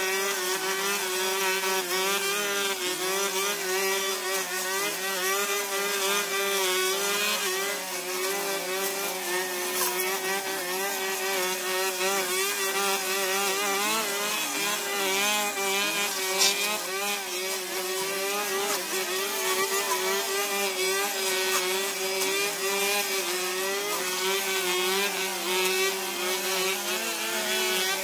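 Two petrol brush cutters running hard while cutting through grass and weeds, their engine pitch wavering up and down as the heads bite in and free up.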